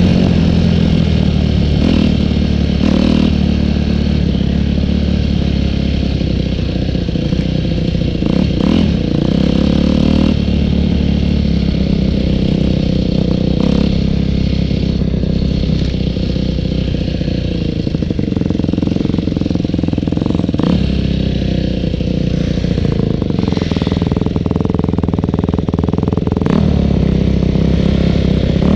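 Dirt bike engines running and revving as they are ridden over rough ground. The engine note rises and falls with the throttle, with occasional knocks and clatter from the bumps.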